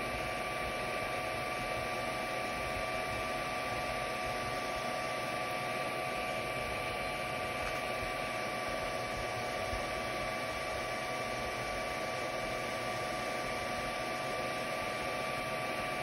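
Filament 3D printer running a print: its fans whir steadily with a constant whine, over an even hiss.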